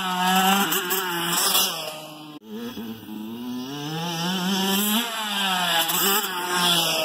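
Dirt bike engine revving on a motocross jump, its pitch rising and falling with the throttle. The sound cuts off abruptly about two and a half seconds in and picks up again, with the engine climbing and easing off a few times.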